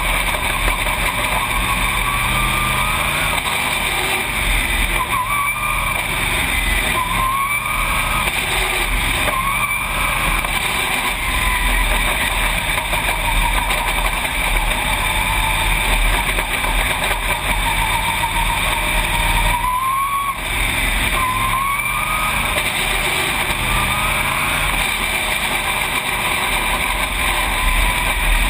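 Race car engine at racing speed on a dirt oval, heard loud from inside the cockpit. Its pitch rises and falls again and again as the car goes through the turns and down the straights, over a steady rush of noise.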